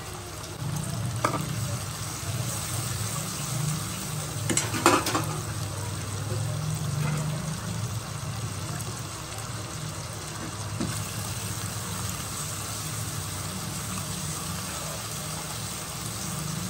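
Ginger-garlic-cumin paste frying with onions and tomatoes in hot oil in a nonstick kadai: a steady sizzle while the paste is fried for a masala base. A silicone spatula stirs it, with a few clicks against the pan, the loudest about five seconds in.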